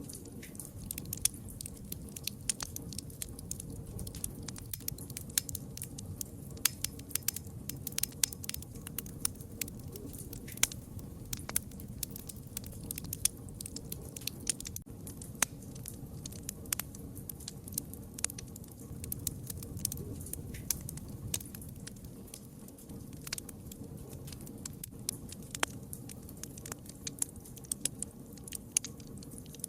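Campfire crackling: many irregular sharp pops and snaps over a low, steady rumble of the flames.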